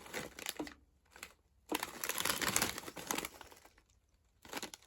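Crinkling of plastic snack packets being handled, in two stretches with short pauses between them and a brief rustle near the end.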